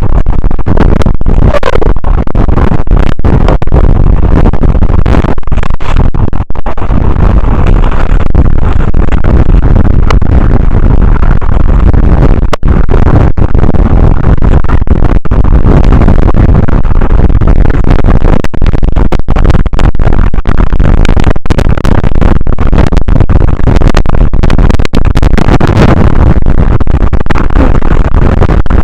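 Strong wind buffeting the microphone: a loud, continuous low rumble that overloads the recording, with constant crackling and brief dropouts.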